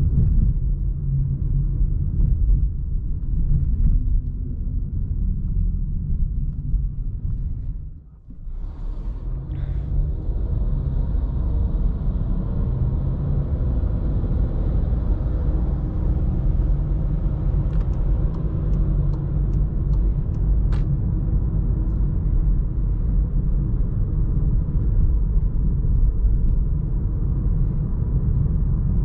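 Volkswagen Jetta 1.4 TSI's inline-four engine and road noise while driving, a steady low rumble that drops away briefly about eight seconds in. A short run of faint, evenly spaced ticks comes near the middle.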